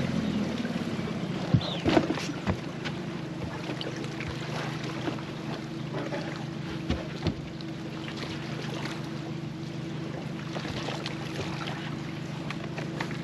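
Boat motor idling steadily, a low even hum, with occasional light knocks and clicks from handling in the boat.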